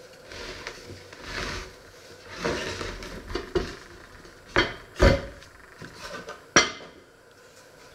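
A heavy enamelled cast-iron casserole and wooden boards being moved about on a wooden worktop: scraping and sliding, then three sharp knocks as the pot and boards are set down.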